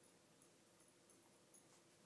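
Near silence: room tone with a few faint, short ticks.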